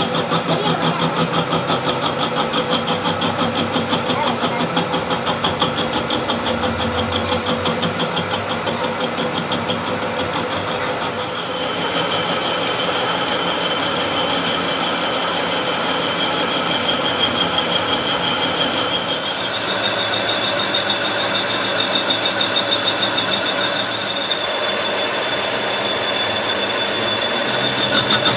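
Metal lathe turning a steel truck suspension trunnion shaft, the cutting tool taking a continuous cut with a steady high-pitched whine over the machine's running hum. The whine pulses quickly for the first ten seconds or so, then steadies and shifts slightly in pitch about halfway through.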